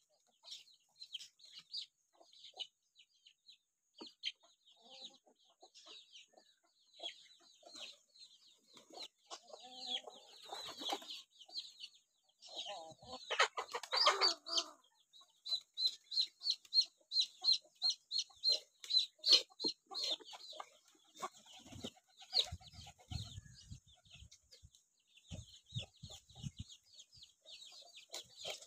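Free-ranging chickens: hens clucking and chicks peeping in quick high runs, with a louder, fuller burst of sound about halfway through.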